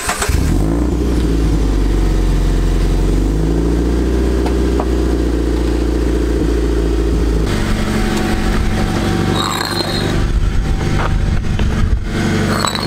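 Scion FR-S flat-four engine running through a freshly fitted TRD aftermarket exhaust, coming on loud at the start and then running steadily, with a change in its tone about halfway through.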